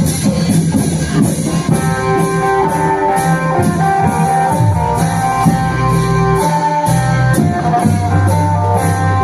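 Isan klong yao long-drum ensemble playing a slow rhythm, drums and cymbal strokes keeping an even beat. A plucked-string melody comes in about two seconds in.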